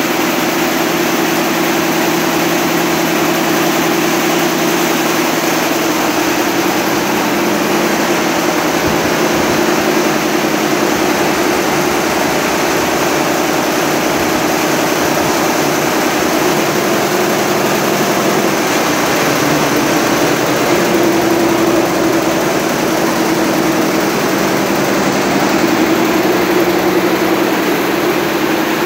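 Richpeace 166 multi-needle quilting and embroidery machine running steadily, loud, with a constant hum under its stitching noise.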